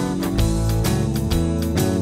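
Background music: strummed guitar with a steady beat.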